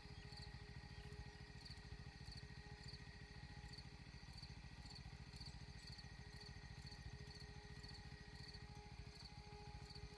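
Faint, regular insect chirping, about two chirps a second, over a low steady background hum.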